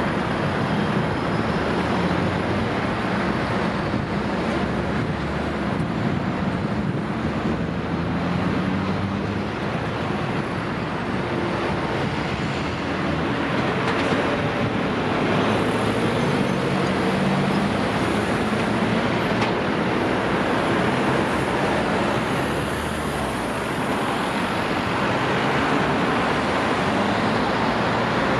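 Steady road traffic: car and lorry engines running, with tyre noise in a continuous wash.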